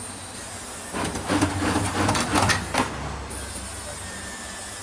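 CNC servo stirrup bending machine running a short cycle on steel bar for about two seconds, starting about a second in: a rapid clatter over a low motor hum.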